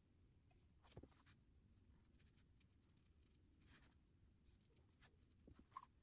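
Very faint scratchy strokes and a few light taps of an art tool working on watercolor paper, with short pauses between strokes.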